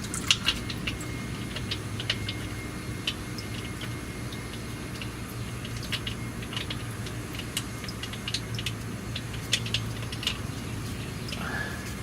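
Irregular light clicks and clinks of hand tools and metal parts being handled, over a steady low hum.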